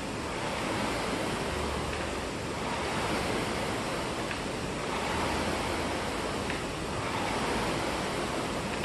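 Air rowing machine's fan flywheel whooshing as it is rowed hard, the rush of air swelling with each drive stroke, about every two and a half seconds.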